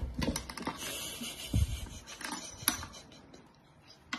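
A puppy shifting on its water bowl on a wooden floor: scattered clicks and scrapes of claws and bowl, with a low thump about a second and a half in, settling to near quiet near the end.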